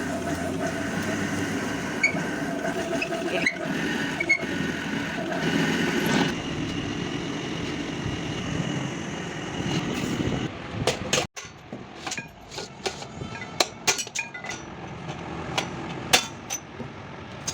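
Steady vehicle and engine noise with faint whining tones for the first ten seconds or so, cut off abruptly; after that, a series of sharp metallic clinks and taps, like tools striking and handling metal parts.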